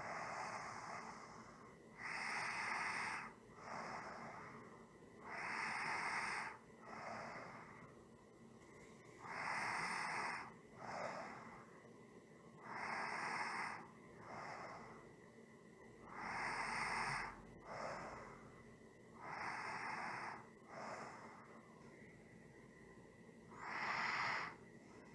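A person's slow, even breathing, about seven breaths in all, one every three and a half seconds or so. Each breath is a longer, louder airy rush followed by a shorter, softer one.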